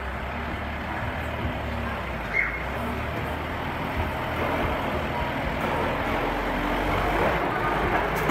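Kubota loader tractor's diesel engine running as it drives slowly past, growing louder as it comes close near the end.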